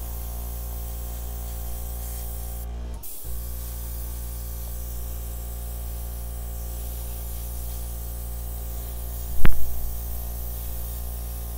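Handleless hair dryer running on its cool setting: a steady rush of air over a motor hum. The sound drops out for a split second about three seconds in, and there is one sharp knock near the end, the loudest moment.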